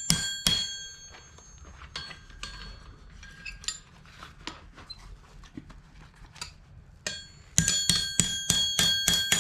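Hammer blows ringing on a steel anvil as a hot, stretched horseshoe is straightened: a few ringing strikes at the start, then light clinks, then a quick run of about three blows a second from about three-quarters of the way in.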